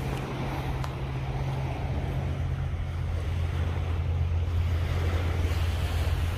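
Wind blowing across the microphone: a steady low rumble under an even hiss, growing slightly stronger about halfway through.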